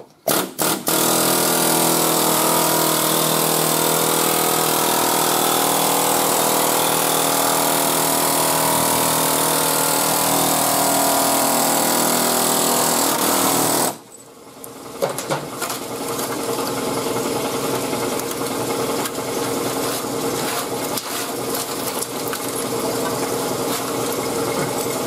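Pneumatic air hammer with a chisel bit running flat out, rattling as it cuts through a truck's sheet-steel rocker panel; it cuts off suddenly about 14 seconds in. After that comes quieter, broken rattling with scattered knocks against the metal.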